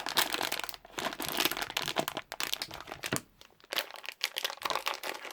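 Crinkling of a plastic sweet packet being handled, dense for the first three seconds and then in scattered crackles.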